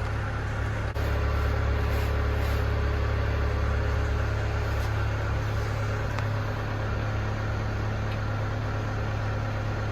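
An engine idling steadily with a deep, even rumble.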